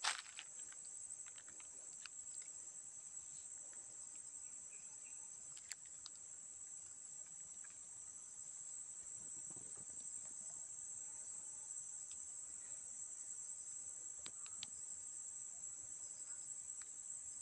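Steady, high-pitched drone of insects calling in vegetation, with a few faint clicks.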